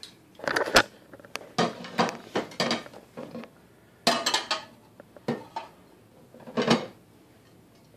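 Cutlery clinking and scraping against a plate in irregular short clatters while cutting into a cheese-topped enchilada.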